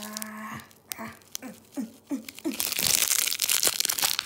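Plastic packet of dried vegetables crinkling and rustling as it is worked to empty it, loudest and most continuous in the second half. A short hummed voice sounds at the start.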